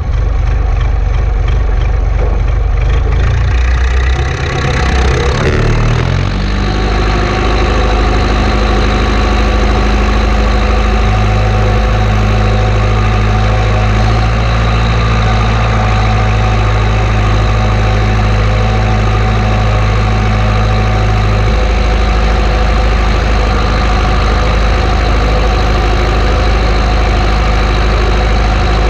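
Massey Ferguson 590 tractor's four-cylinder Perkins diesel running at the vertical exhaust stack, uneven for the first few seconds and then settling into a steady idle. The owner presents the exhaust note as healthy.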